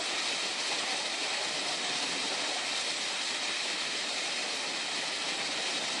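The water of Multnomah Falls, a tall two-tiered waterfall, rushing steadily as an even hiss that neither rises nor falls.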